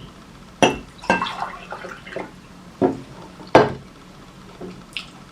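Eating at a table: about six short clinks and knocks of dishes, the loudest about three and a half seconds in, with quieter wet eating sounds between them.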